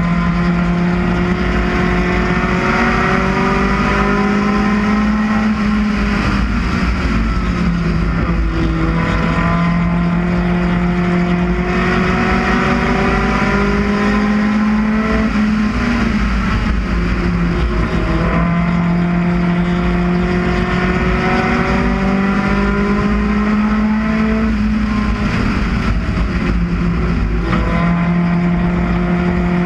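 UCAR race car's four-cylinder engine at racing speed, heard from on board. The engine note climbs steadily for several seconds, then drops back when the driver lifts for the turns, and this repeats several times.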